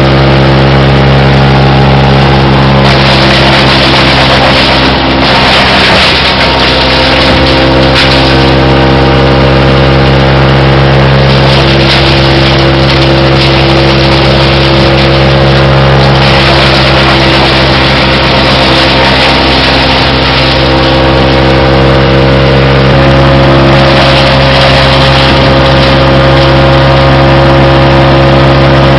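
Engine of a 2001 Dosko wood chipper running steadily, with stretches of added rushing noise coming and going a few times.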